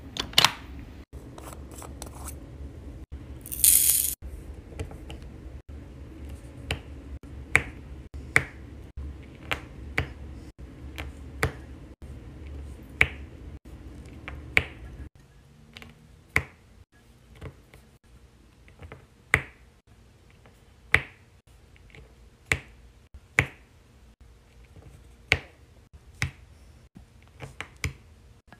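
Diamond painting drill pen pressing resin drills onto the sticky canvas: sharp single clicks, roughly one a second at irregular spacing. There is a short rustle about four seconds in and a low hum under the first half.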